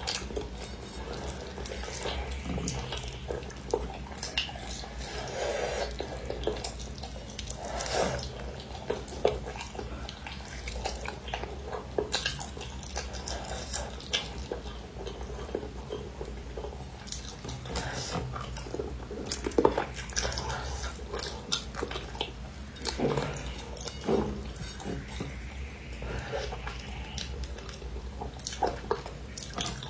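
A person eating close to the microphone: wet chewing, smacking and sucking sounds, with scattered short clicks of utensils on a dish, over a steady low hum.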